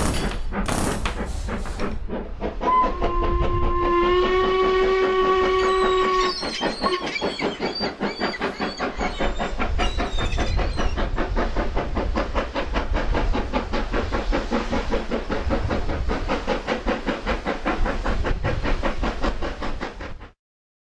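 Toy train set: a few knocks at the start, then a whistle sounding for about three seconds with a small step up in pitch, followed by fast, steady clicking and chuffing as the battery toy train runs round its plastic track. It cuts off suddenly near the end.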